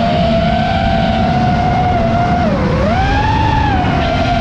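FPV quadcopter's brushless motors and propellers whining at high speed. The pitch holds fairly steady, falls briefly about two and a half seconds in, then rises again as the motor speed changes.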